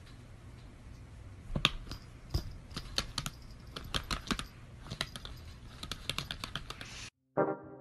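Irregular clicking and tapping on a laptop's keys, a few clicks a second, over a low hum. Near the end it cuts off suddenly and music with plucked, piano-like notes begins.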